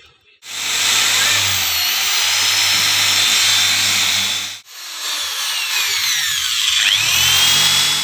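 Electric hand drill boring pilot holes into wood: two runs of about four and three and a half seconds with a short break between. Near the end of the second run the motor's pitch drops and climbs again.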